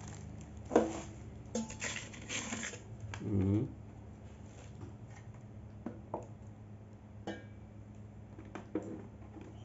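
Handling sounds of an air fryer being unpacked: plastic wrap crinkling and light knocks and clicks as the fryer's black basket and body are moved and touched, most of them in the first few seconds.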